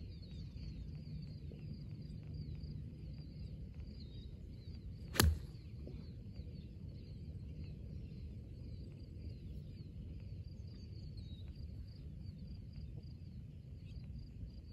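A golf club striking a rubber bouncy ball once, a single sharp crack about five seconds in. Birds chirp faintly throughout over a low outdoor rumble.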